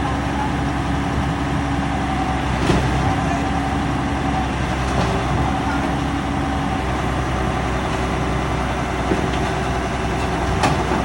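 Heavy diesel engine running steadily, with a couple of short metallic knocks.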